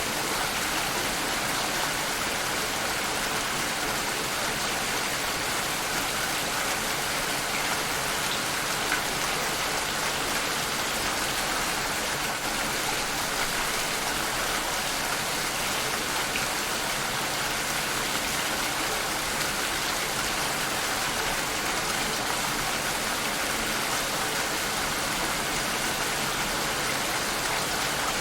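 Steady rainfall: an even hiss of rain with faint scattered drop ticks, unchanging in level.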